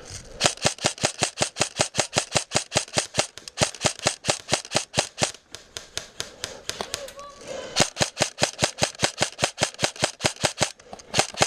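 Airsoft rifle firing on full auto: long strings of rapid, evenly spaced sharp shots, breaking off for about two seconds in the middle before starting again.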